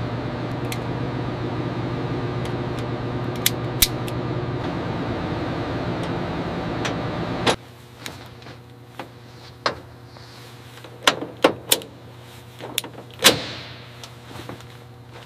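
A steady mechanical hum that cuts off suddenly a little past halfway. It is followed by scattered sharp metallic clicks and clinks of hand tools and cable connectors being worked, the loudest near the end.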